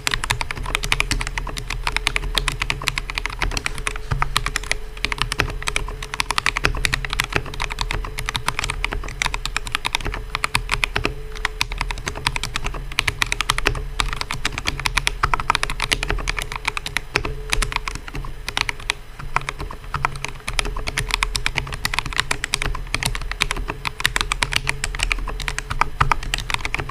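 Mechanical keyboard with KTT Sea Salt Lemon linear switches being typed on continuously, a fast run of clacky keystrokes.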